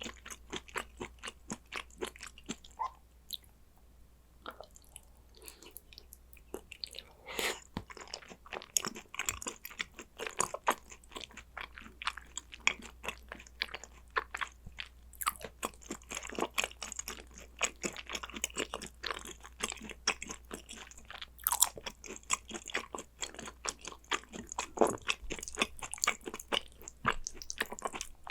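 Close-miked chewing and biting of gochujang-dressed raw Korean beef tartare (yukhoe): a dense run of quick mouth clicks and crunches, thinning out for a few seconds near the start before picking up again.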